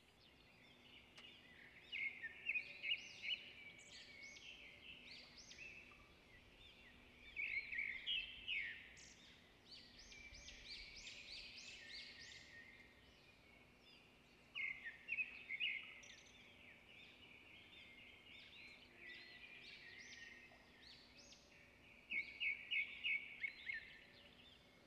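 Small birds singing and calling, faint, in bursts of quick repeated chirps about every six to seven seconds, over a faint steady low hum.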